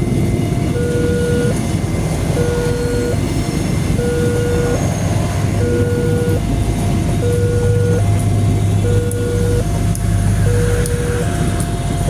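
Railway level-crossing alarm sounding a two-tone signal, alternating between a lower and a higher tone each held just under a second, over the steady rumble and wheel noise of a Commuter Line Prameks train passing through the crossing.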